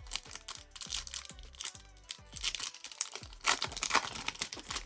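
Crinkling and tearing of a trading-card pack's foil wrapper being handled and ripped open, in irregular crackling bursts that are loudest a little past the middle.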